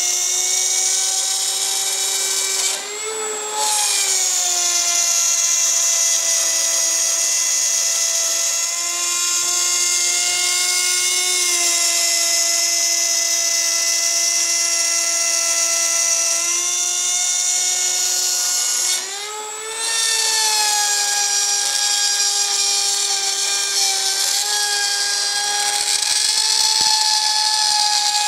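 Rotary-tool spindle of a Shapeoko 2 CNC router running at high speed while milling a slot in acrylic sheet: a steady high-pitched whine. Twice, about 3 seconds and 19 seconds in, the whine briefly rises in pitch and drops in level.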